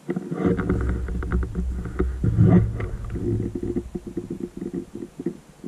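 Footsteps pushing through dry brash and undergrowth, with crackling and rustling over a heavy low rumble on the microphone that is loudest in the first three seconds. Lighter crunching steps follow.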